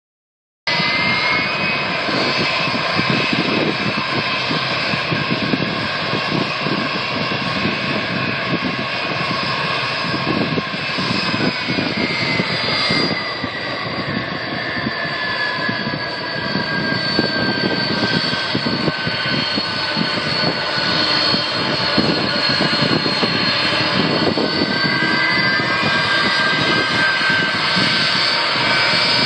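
Turbofan engines of a Boeing 747 Dreamlifter running at taxi power: a steady, loud jet noise with high whining tones that slowly fall in pitch midway and rise again near the end.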